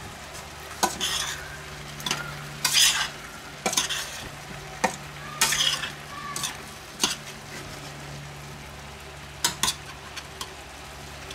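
A metal spoon stirring Brussels sprouts and green beans in butter in a stainless steel pot, in irregular scraping, clattering strokes, with the vegetables sizzling in the butter underneath.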